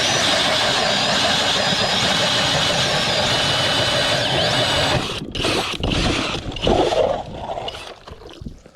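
A cordless drill driving an ice auger runs steadily with a thin motor whine, boring a hole through the ice. It stops about five seconds in, followed by a few irregular knocks and scrapes.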